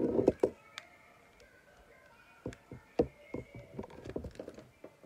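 Clicks, taps and knocks of a plastic toy train engine being handled while a screwdriver works the screw of its battery compartment. A few louder knocks at the start, then scattered light clicks.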